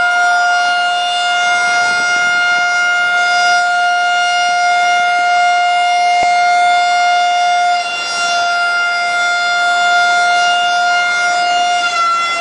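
Evacuation alarm siren sounding one continuous, loud, steady-pitched tone with a brief dip about eight seconds in: the signal for a dry-dock evacuation drill.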